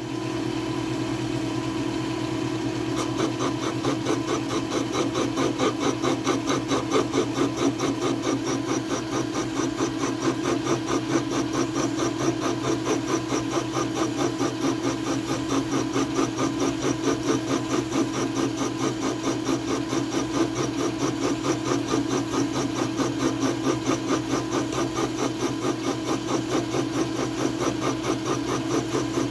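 Milling machine running steadily with a boring head cutting out a hole in a metal plate. A steady motor hum is joined a few seconds in by a rhythmic pulsing from the cut, about four beats a second.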